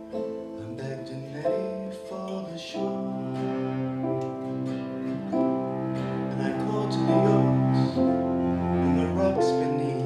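Instrumental passage of a live folk ensemble: held violin and cello notes over acoustic guitar and keyboard chords, with a low bass line. It grows louder over the first few seconds.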